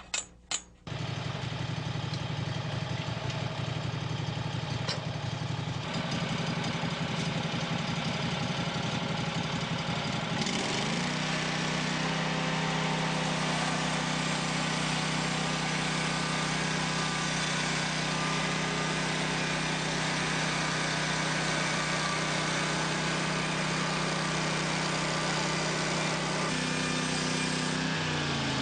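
Portable sawmill's gasoline engine running, after a few sharp clicks at the start; about ten seconds in it speeds up and then runs steadily at the higher speed, slowing again near the end.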